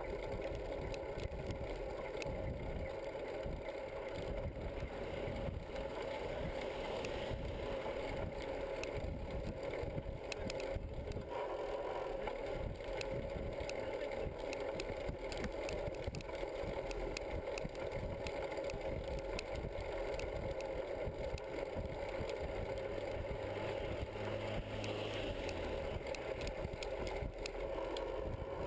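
A bicycle riding along an asphalt road: steady road and wind noise with many small rattles as the bike and its metal rack jolt over the surface.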